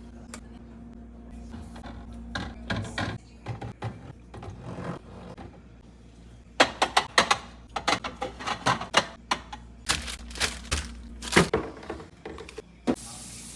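Containers and grocery items clacking and knocking as they are handled and set onto refrigerator shelves, in a quick run of sharp clicks and taps. A steady hiss starts near the end.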